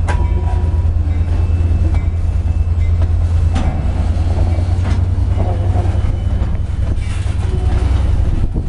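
Freight train rolling by: a steady low rumble with scattered clanks and brief high squeals from the wheels, easing off near the end.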